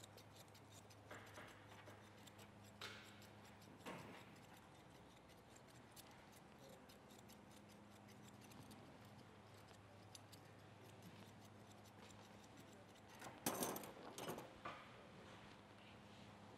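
Faint snips of grooming shears trimming a Shih Tzu's face coat, single quiet clicks now and then over a low steady hum, with a short louder burst of clicks and clatter near the end.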